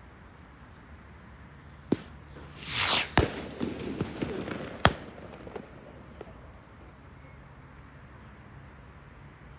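Fireworks going off: a sharp bang about two seconds in, a loud rushing whoosh, then two more sharp bangs with crackling between them and a few fainter pops dying away.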